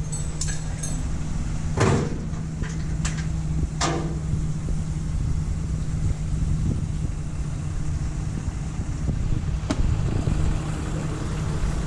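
A steady low mechanical hum, with a few short clicks and knocks scattered over it.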